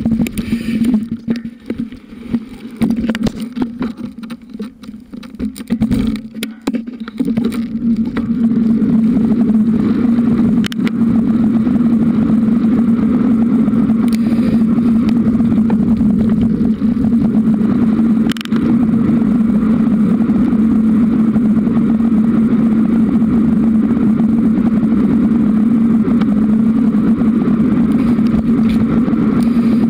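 Riding noise from a moving bicycle on a camera mic, wind rushing over the microphone. For the first several seconds on a bumpy grassy track it jolts and knocks unevenly, then settles into a steady, loud rush on the smooth paved path.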